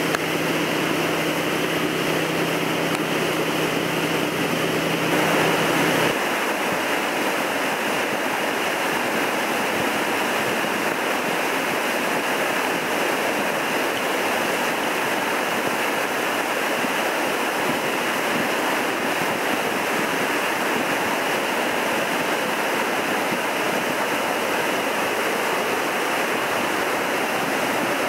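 The Wildcat River in flood after heavy rain, churning whitewater rushing over Jackson Falls and under a stone bridge: a loud, steady roar. For about the first six seconds a low steady hum sits under it, then stops.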